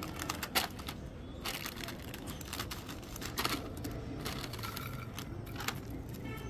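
A snack packet being opened and handled, its wrapper crinkling in irregular crackles and rustles.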